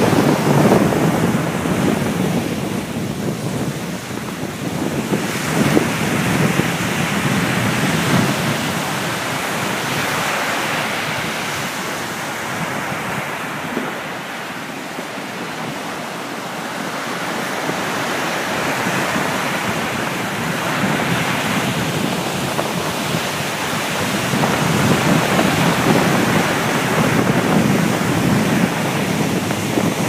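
Sea surf breaking and washing up on a sandy beach, a continuous rush that swells and ebbs, quieter in the middle and building again near the end, with wind buffeting the microphone.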